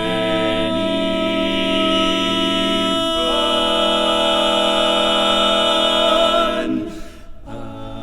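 Barbershop quartet singing a cappella, holding long sustained chords. The chord shifts about three seconds in, breaks off near the seven-second mark, and a new chord starts just before the end.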